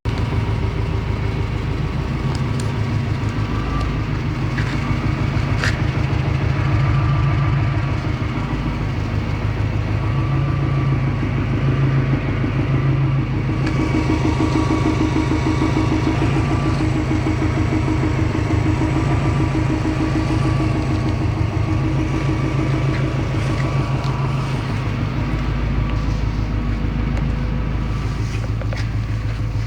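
Subaru Impreza GT's turbocharged flat-four engine running steadily, with a constant low rumble and no big changes in revs.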